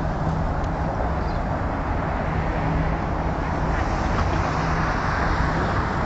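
Steady rush of road traffic, with a low steady hum underneath.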